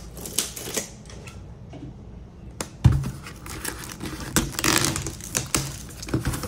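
Plastic shrink wrap crinkling and tearing as it is peeled off a cardboard trading-card box, with a single sharp thump about three seconds in and the densest crinkling a second or so later.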